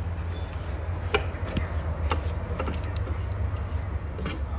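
Spatula scraping down the chopped garlic and onion inside the stainless steel bowl of a kitchen cooking machine, with about five light knocks against the bowl over a steady low hum.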